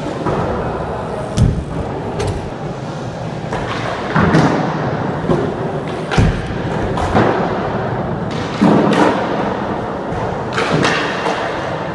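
Riders' wheels rolling across indoor skatepark ramps, with a series of hard thumps from landings and ramp impacts every second or two.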